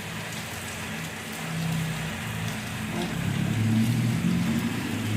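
Heavy rain during a storm, an even hiss, under a low rumble that grows louder after about three seconds.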